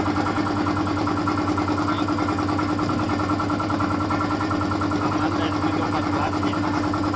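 A 2 hp compressor running steadily, with a fast, even pulsing and a steady hum.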